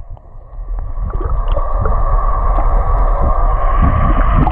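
Sound heard underwater beside a moving boat: muffled water rush and bubbling, with a steady whine from the panga's outboard motor that sets in and grows louder about a second in.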